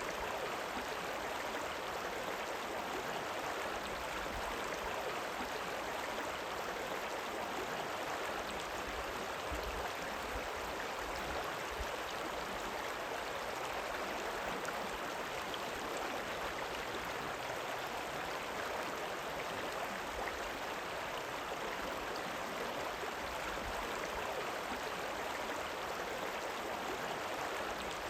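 River water rippling and running steadily: one even sound that neither pauses nor changes.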